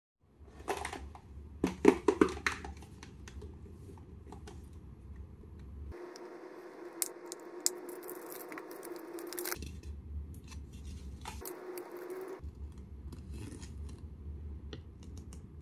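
Plastic gashapon capsule being handled and unwrapped: its plastic film crinkling and tearing, with a cluster of sharp clicks and crackles loudest about two seconds in, then softer rustling.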